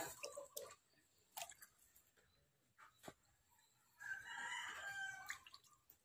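A rooster crows once, faintly, about four seconds in, a call of about a second and a half; the rest is near silence with a few light clicks.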